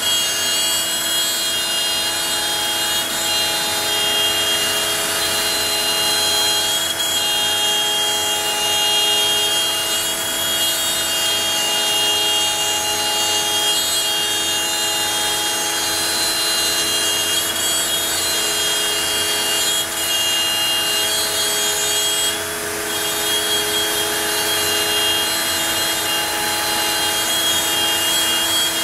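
CNC router spindle running at high speed, its bit cutting into a taped-down board: a steady high whine over a cutting hiss, easing briefly about three-quarters of the way through.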